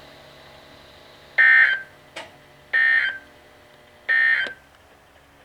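Weather radio Emergency Alert System end-of-message data code: three short, loud, raspy digital bursts about 1.4 seconds apart, marking the end of the alert. Faint radio hiss lies between the bursts.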